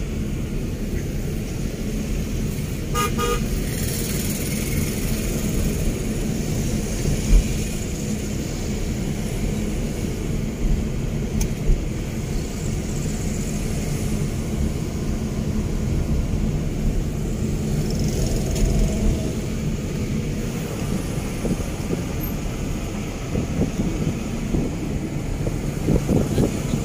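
Steady road and engine noise of a car driving in city traffic, heard from inside the car, with a short vehicle-horn toot about three seconds in.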